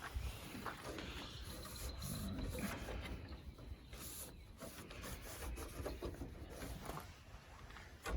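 Irregular rubbing and scraping handling noise with a few light knocks, as the truck's hood latch is felt for.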